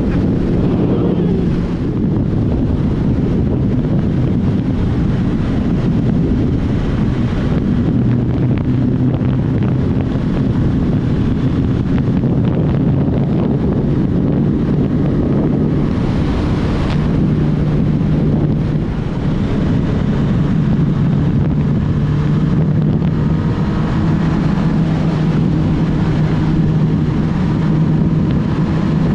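Heavy wind buffeting the microphone of a Suzuki Hayabusa motorcycle at road speed, with the stock inline-four engine's quiet drone underneath. The engine note drops about eight seconds in and rises again around sixteen seconds, where a brief brighter rush of noise also comes through.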